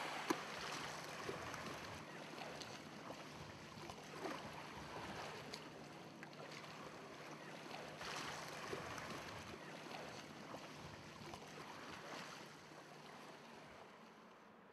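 Sea water lapping and splashing softly, swelling and easing like small waves, and fading away near the end.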